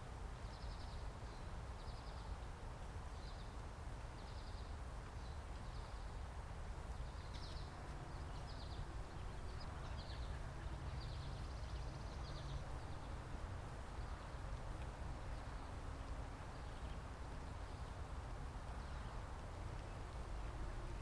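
A bird calling, a series of short high notes repeated irregularly through the first dozen or so seconds, over a steady low rumble and hiss of outdoor background noise.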